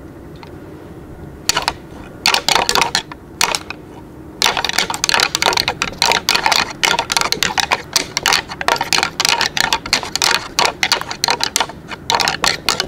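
Rattling antlers clashed and ground together in fast clattering strokes, imitating two bucks fighting to call in deer. Two short bursts come a couple of seconds in, then after a pause a long run of rattling from about four seconds in.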